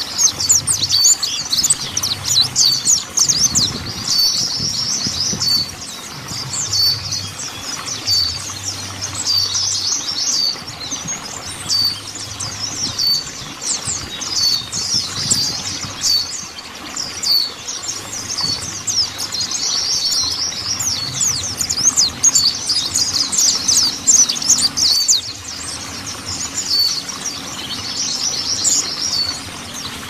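Mountain white-eye (pleci montanus) singing: rapid, high twittering phrases of quick chirps, each a second or two long, repeated with short pauses, over a faint low hum.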